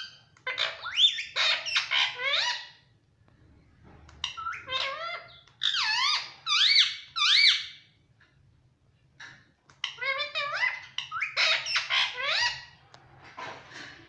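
Indian ringneck parrot chattering: three bursts of high, squeaky calls that slide up and down in pitch, each about two to three seconds long with short pauses between, and a few fainter calls near the end.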